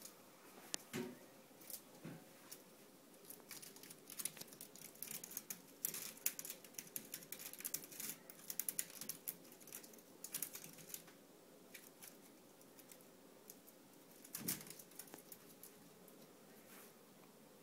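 Kitten's claws scratching and catching on a woven wicker chair back: a run of short, dry scratches and clicks, busiest in the middle, with a few louder knocks near the start and one more about two-thirds through.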